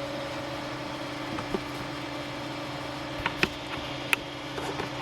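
3D printer's fans running with a steady hum, one tone giving way to a lower one at the start, with a few light clicks about midway and near the end.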